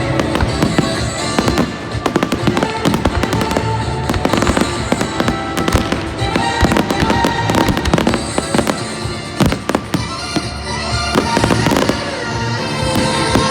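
Fireworks display: rapid bangs going off many times a second, over loud music played for the show.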